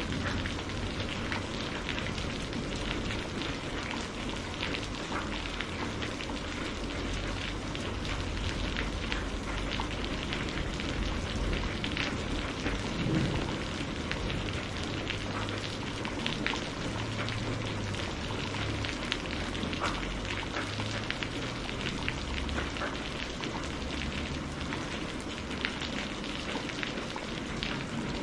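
Steady rain falling, a dense even patter with many separate drop ticks.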